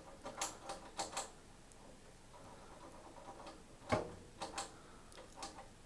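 Front-panel pushbutton switches on a vintage Hameg HM312-8 oscilloscope being pressed and released: a scattered series of sharp clicks, the loudest about four seconds in. These are the switches whose dirty contacts are suspected of causing ghost traces.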